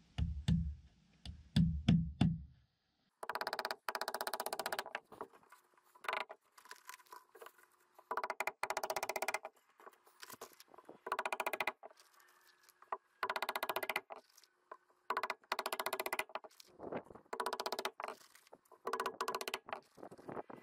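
A few heavy knocks, then a power tool run again and again in short bursts of about a second, each with a fast buzzing rattle.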